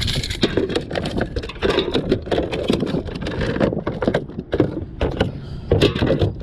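A landed bass flopping on a wet plastic kayak deck: an irregular run of slaps, knocks and thumps.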